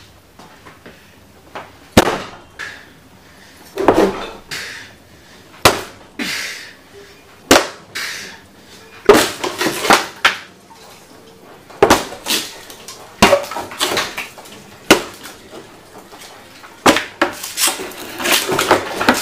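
An axe chopping repeatedly into a wooden interior panel door: about a dozen sharp blows, one every second or two, with the door panel cracking and splintering as it breaks open.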